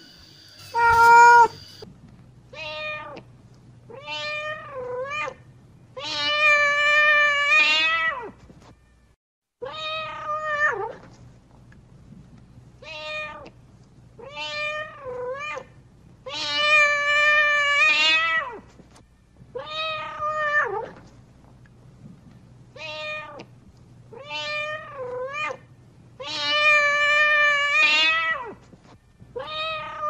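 Mother cat meowing to call her kittens: a run of two short meows, one that dips in pitch, then one long drawn-out meow. The same run comes round again about every ten seconds.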